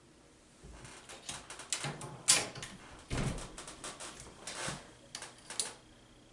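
Scattered metallic clicks and knocks from a single-stage reloading press as a .223 case is set in the shell holder and a new primer is seated. The two loudest knocks come in the middle.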